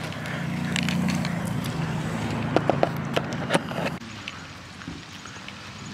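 Phone handling noise while walking: a handful of sharp clicks and taps near the middle over a low steady hum, which drops away about four seconds in.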